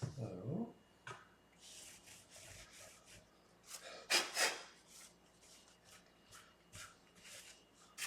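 Scratchy rubbing strokes of abrasive on a fret-levelling beam drawn along an electric guitar's frets, uneven in spacing, with the loudest stroke about four seconds in.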